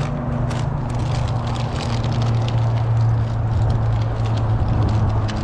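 Steady low hum of an idling car engine, heard from inside the cabin, with a run of crackling clicks from a snack bag of pretzels being opened and handled.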